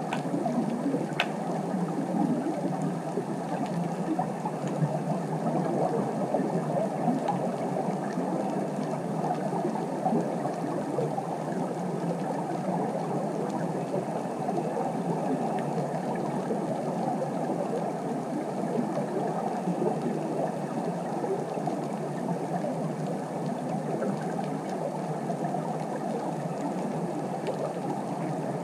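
Steady, muffled underwater ambient noise of moving water, with a faint click about a second in.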